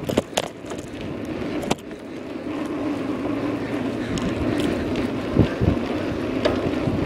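Bicycle tyres rolling over a paved street, with a few sharp rattles and knocks in the first two seconds. The rolling noise then grows steadier and louder from about two and a half seconds in.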